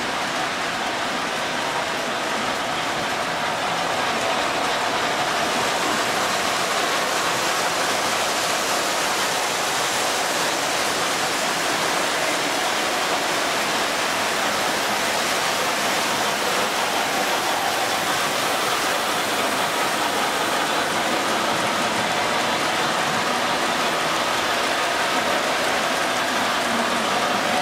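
O gauge three-rail model passenger trains running past on the track, their wheels and motors making a steady rolling noise with a faint hum.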